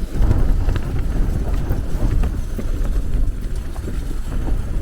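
Strong gusty wind buffeting the microphone, a loud, uneven low rumble.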